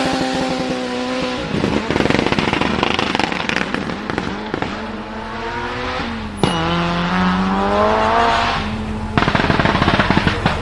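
A high-performance engine revved up and held, then a rapid string of exhaust pops and crackles as the throttle closes. A sharp bang comes about six seconds in, the engine revs up again, and a second burst of crackles follows near the end.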